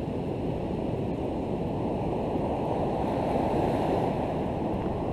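Ocean surf breaking and washing up the beach: a steady rumbling wash that swells a little about three and a half seconds in.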